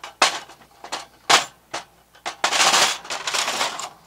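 Hard plastic paper tray of a laser printer being handled: a series of sharp plastic clicks and knocks, then about a second and a half of scraping as it slides along its rails.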